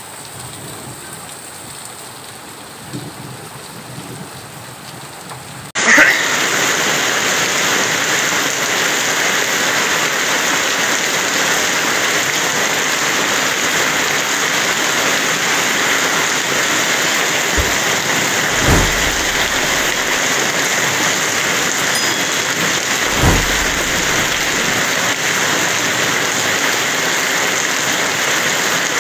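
Heavy rain pouring down on a flooded street, a steady dense hiss of downpour and splashing water. It is fainter at first, then suddenly much louder about six seconds in. Two short low rumbles come through the rain about twelve and seventeen seconds later.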